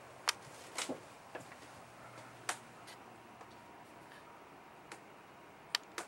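Handling noise from a handheld camcorder: about seven sharp clicks and taps at irregular spacing over a low steady hiss.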